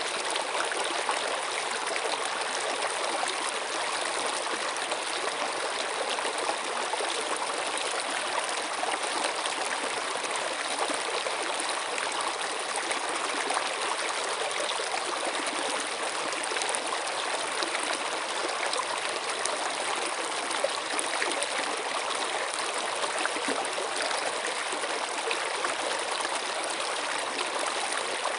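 Water running steadily in a stream, an even flowing and trickling sound.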